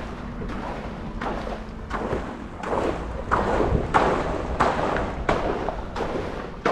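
Footsteps on a water-filled tube walkway covered in plastic sheeting: a dull thud with each step, evenly spaced at about three steps every two seconds.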